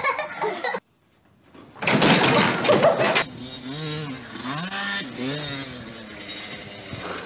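Small dirt bike engine revving up and down as it is ridden, its pitch rising and falling over and over. Before it comes a loud rushing noise, and earlier, under a second in, a loud burst that cuts off suddenly.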